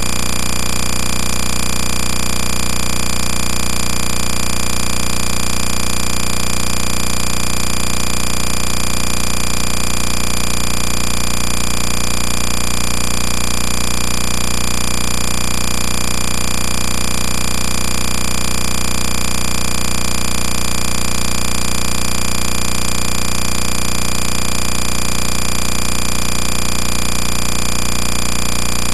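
A loud, steady, unchanging mechanical-sounding drone with a constant high whine over it.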